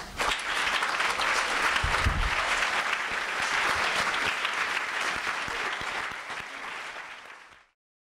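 Audience applauding, a dense spatter of many hands clapping that eases off and is cut off abruptly near the end.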